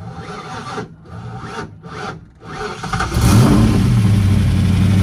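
Fox-body Mustang's small-block Ford V8, fitted with a new Trick Flow cam and cylinder heads, being cranked in several short surges before it catches about three seconds in. It flares up briefly, then settles into steady running on its first start-up after the top-end swap.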